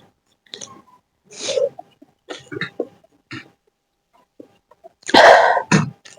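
Close-miked eating sounds: short, scattered bursts of chewing and slurping, then a loud breathy burst lasting about half a second, about five seconds in.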